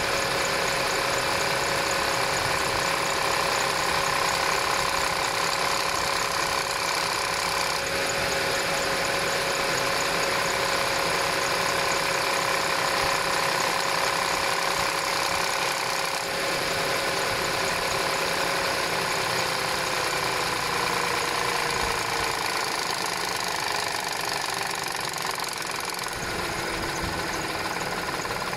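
Audi 3.0 TFSI supercharged V6 running after a cold start, with the mechanical cold-start noise that the owner believes comes from the upper driver's-side cam chain tensioner. A steady whine sinks gradually in pitch over the last third.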